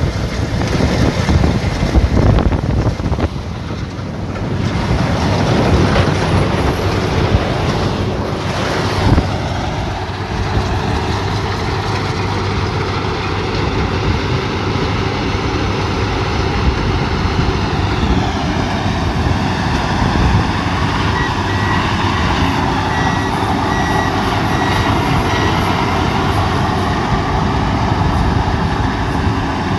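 Rice combine harvester running steadily in the field. About two-thirds of the way through, a short run of high electronic warning beeps sounds over it.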